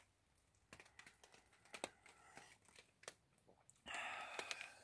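Near quiet, broken by scattered light ticks of rain dripping on a clear plastic tarp overhead, and a short breathy rush near the end as he breathes out after a sip of hot tea.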